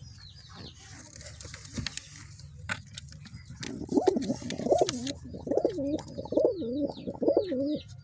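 Domestic pigeon cooing: a run of rolling, warbling coos that starts about three and a half seconds in and lasts about four seconds. Faint high chirps from other birds come near the end.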